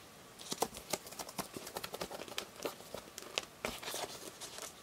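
Pages of a Tazo collector album being handled and turned: a run of light crinkles and small irregular clicks.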